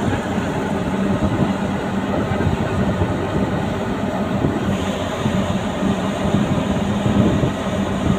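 Steady low rumble of a car rolling down the steel loading ramp of a car-carrier ship, over a constant low hum.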